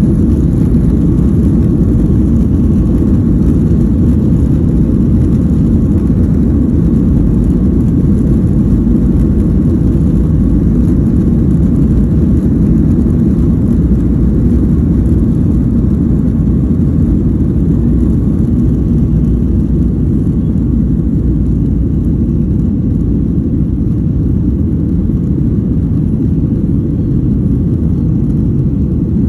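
Boeing 737 jet engines at takeoff thrust, heard inside the cabin as a loud, steady, deep rumble with runway roll. The plane accelerates down the runway and lifts off, and the rumble eases a little in the last several seconds.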